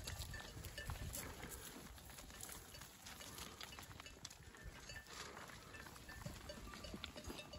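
A flock of sheep heard faintly, with bells clinking now and then.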